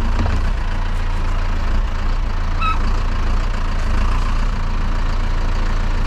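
Claas tractor's diesel engine running steadily with a deep, even hum. There is one short high squeak about two and a half seconds in.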